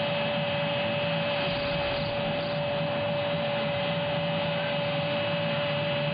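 Steady stadium crowd noise from a football broadcast, with a constant electrical hum tone running through it.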